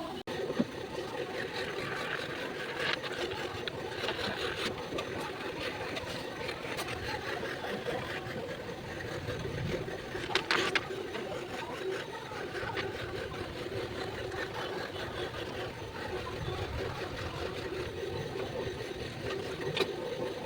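A small woodworking power tool running steadily, with one brief, sharper, louder rasp about ten seconds in.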